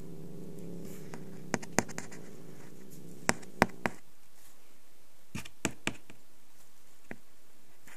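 A tortoiseshell cat growling low and steadily, the growl fading out about four seconds in. Sharp clicks and taps close to the microphone come in three short groups, with one more near the end.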